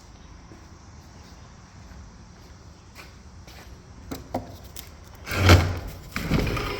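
An old weathered door being dragged open with a loud scrape and creak near the end, after a few scattered knocks and steps.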